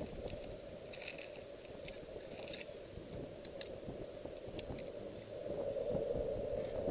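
Wind buffeting the microphone as a steady rushing noise that grows louder about five seconds in. Over it come small clicks and scrapes of hands working a cable and a hand tool.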